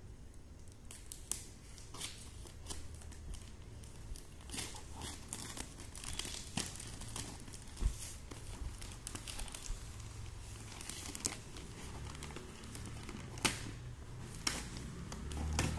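Plastic parcel wrapping crinkling and tearing as it is cut open with scissors and pulled apart by hand, in irregular crackles with a few sharper snaps.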